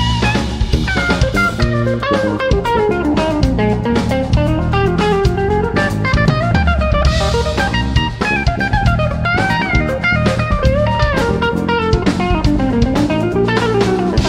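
A live instrumental trio of electric guitar, electric bass and drum kit playing an odd-time fusion piece, with fast melodic runs sweeping up and down over the bass line and busy drumming.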